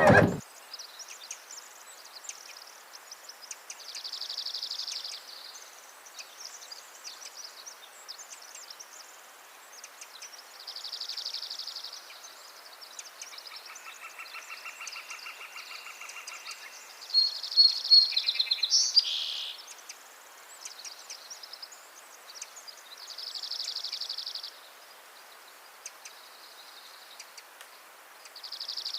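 Outdoor rural ambience of birds chirping, with a buzzy trill lasting about a second that recurs every several seconds. A louder flurry of calls comes about two-thirds of the way through.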